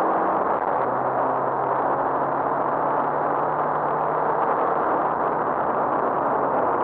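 Rally car engine pulling at high, steady revs, heard from inside the cabin under a loud rushing of road and wind noise; the engine note drops once about a second in, then holds steady.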